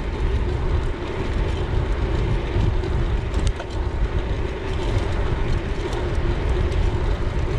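Wind buffeting the handlebar-mounted action camera's microphone, mixed with the tyre rumble of a gravel bike rolling on tarmac: a steady, loud, low rushing noise.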